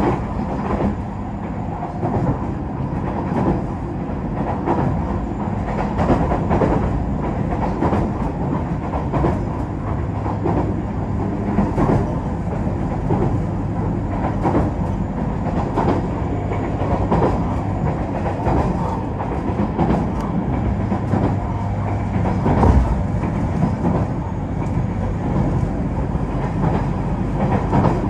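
JR Kyushu KiHa 47-type diesel railcar heard from inside the passenger cabin while running at speed: a steady low engine drone under the rattle and clickety-clack of wheels over rail joints, one louder knock about 23 seconds in.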